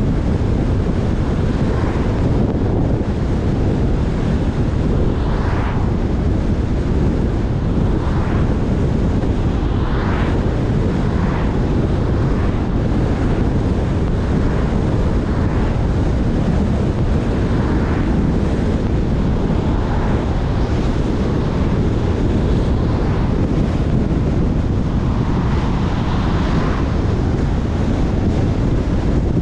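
Steady wind rush over the microphone and tyre noise from a car driving at road speed, with short swells every few seconds as oncoming cars pass.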